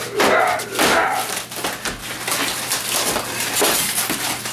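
Model railroad scenery mountain being broken apart by hand: repeated cracking, crunching and splintering as pieces are torn loose, with a short voice-like sound in the first second.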